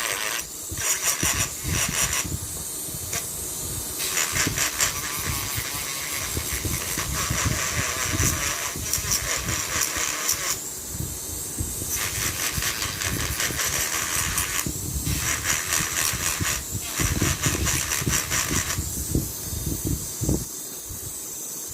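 Coarse 80-grit sandpaper scrubbing back and forth over a steering knob's surface, a rapid scratchy rasping that comes in several spells with short pauses between them, scuffing up the finish so rhinestones will stick.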